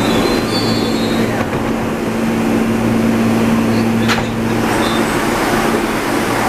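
R160 subway train running steadily, a loud even rumble with a constant low hum and no rise or fall in pitch; one brief tick about four seconds in.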